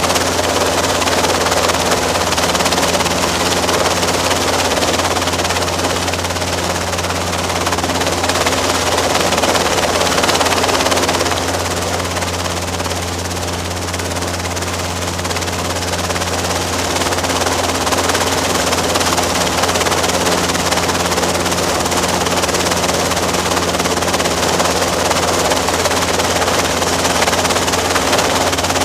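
Robinson R22 helicopter's carbureted piston engine and two-blade rotor running steadily as a loud low drone, dipping a little in loudness around the middle.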